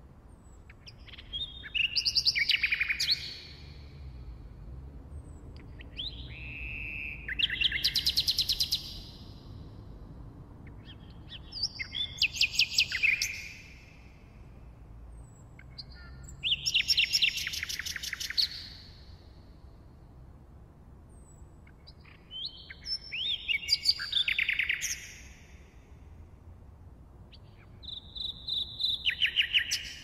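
Nightingale singing: six separate song phrases about five seconds apart, each a short burst of fast repeated notes and rapid trills, with quiet pauses between them.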